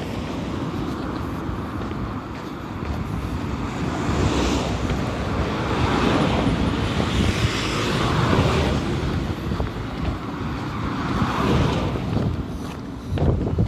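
Road traffic: cars passing one after another, their engine and tyre noise swelling and fading several times over a steady low rumble, with wind buffeting the microphone.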